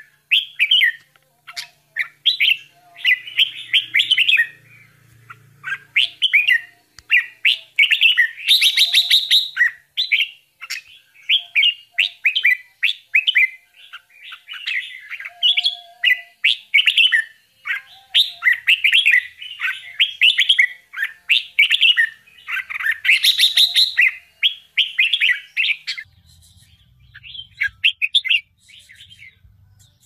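Bulbul nestlings chirping in quick, dense runs of short high calls, begging to be fed. The calls thin out to a few fainter chirps near the end.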